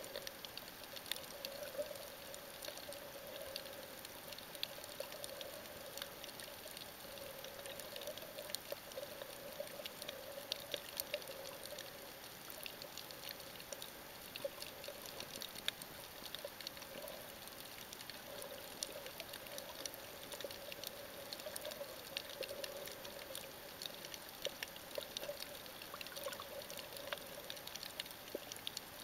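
Underwater ambience picked up by a camera held beneath the surface of a coral lagoon: a steady hiss with many small scattered clicks and crackles, and a low drone that swells and fades.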